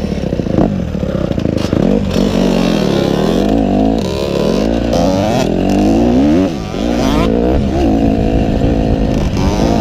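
Dirt bike engine heard on board while riding, its pitch rising and falling as the throttle opens and closes through the gears, with a short throttle-off about six and a half seconds in.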